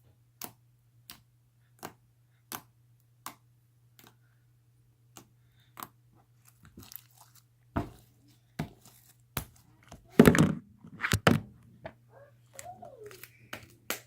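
Sticky slime being poked and worked by hand, giving short sharp clicks and pops, evenly spaced at first, then more irregular, with the loudest crackling about ten seconds in.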